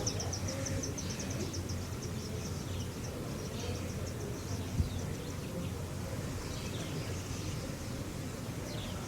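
Steady background ambience with a low hum: an insect chirring in fast pulses that fades out over the first couple of seconds, then a few faint bird chirps, and one soft knock about five seconds in.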